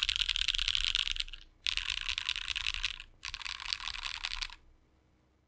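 Fast typing on a custom 60% mechanical keyboard with lubed JWK Black linear switches, an FR4 plate on a gummy O-ring mount and GMK keycaps: three bursts of rapid keystrokes with short pauses between.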